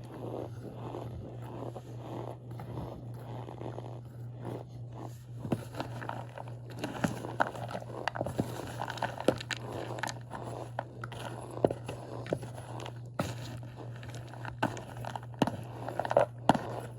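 Chunks of cornstarch being crushed, giving soft crunching and squeaky crackling, with sharp crunches coming thicker and louder from about five seconds in.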